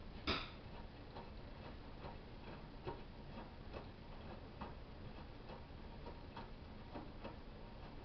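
Front-loading washing machine running a wash: a faint steady hum with a soft click a little more often than once a second as the drum turns, the first click the loudest.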